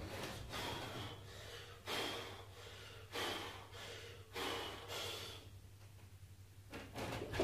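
A weightlifter takes sharp, forceful breaths while holding the barbell in the front rack, bracing for the jerk. There are about five breaths, a little over a second apart, then a pause.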